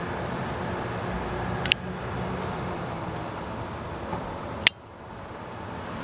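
Steady low rumble of distant motor noise. Two sharp clicks cut through it, one just before two seconds in and one just before five seconds in; the second is followed by a brief dip in the background.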